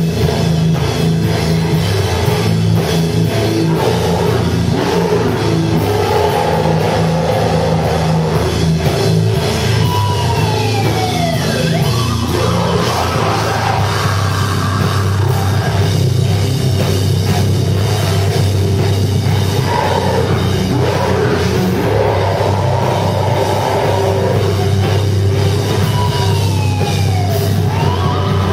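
Deathcore band playing live and loud, with distorted guitars and a drum kit. Two falling pitch glides stand out, one about ten seconds in and one near the end.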